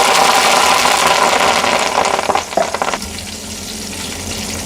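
Curry leaves sputtering and crackling in hot frying oil: a loud burst of sizzling that settles to a quieter sizzle about three seconds in.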